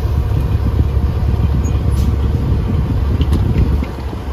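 Peterbilt 379 semi truck's diesel engine running with a steady low rumble, heard from inside the cab.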